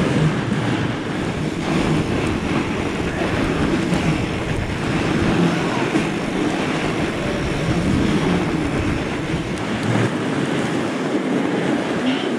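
Wind buffeting the bike-mounted camera's microphone and fat-bike tyres rolling fast over packed snow, with a low hum that wavers up and down.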